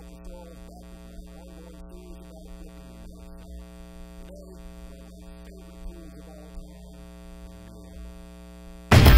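Steady electrical mains hum, with a faint, barely audible voice beneath it. Loud music cuts in suddenly right at the end.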